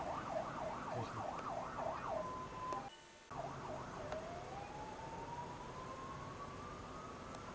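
Emergency-vehicle siren in a fast up-and-down wail, about two cycles a second; after a brief break about three seconds in, it returns as one slow rising wail.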